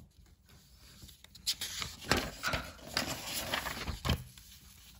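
Paper rustling as a textbook page is turned and smoothed down, a run of crinkly swishes and crackles from about a second and a half in until just after four seconds.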